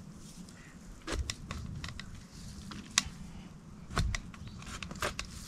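Garden spade digging into soil in a potato bed: scattered gritty crunches and sharp clicks of the blade in the earth, with low thuds about a second in and again about four seconds in.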